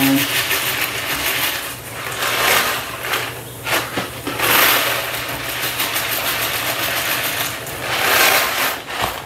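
Dry elbow macaroni being poured out, a loose rattling clatter of hard pasta pieces that swells and eases in uneven spurts.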